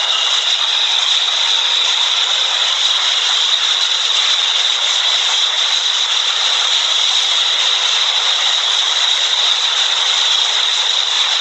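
New York City subway train running alongside the platform: a loud, steady rush of wheels on rails with a high ring held over it.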